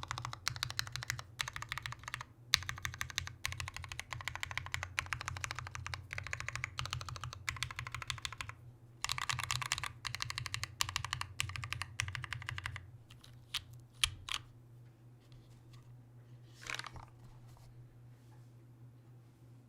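Perry MC65 mechanical keyboard with Cherry Nixie switches (lubed with 205g0) on an aluminium plate and GMK Sloth keycaps, its keys spammed in fast, dense clacking with two short breaks. The clacking stops about two-thirds of the way in, followed by a few single key clacks, a short scrape and then quiet.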